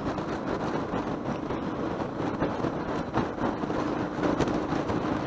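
Motorcycle riding along an open road: a steady rush of wind and road noise with the engine running underneath. A faint steady hum comes in about three seconds in.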